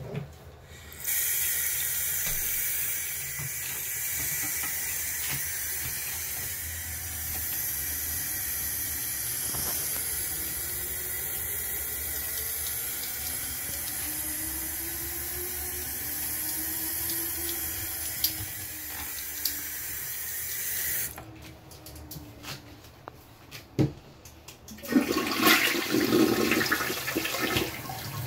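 Bathroom sink faucet running steadily into the basin for about twenty seconds, then shut off. After a pause with a couple of sharp clicks, a toilet is flushed, its bowl swirling and draining near the end.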